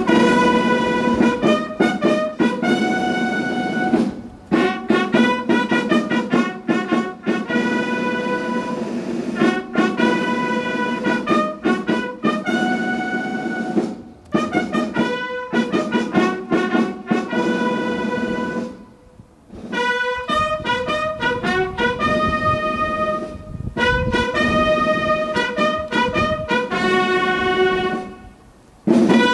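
Brass band of trumpets and trombones playing phrases of long held notes, broken by short pauses between phrases.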